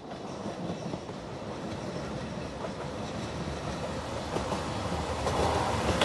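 JR Shikoku 2700 series diesel train approaching and passing close by, its engine rumble and wheel noise growing steadily louder. Wheels click over the rail joints near the end.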